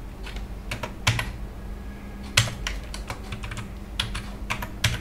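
Computer keyboard typing: irregular keystroke clicks, a few struck harder than the rest, as a line of code is entered.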